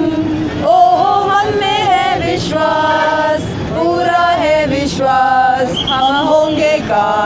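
A group of people singing a song together in unison, with long held notes.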